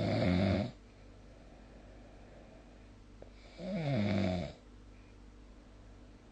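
A sleeping person snoring: two snores about four seconds apart, each lasting about a second, with quiet between them.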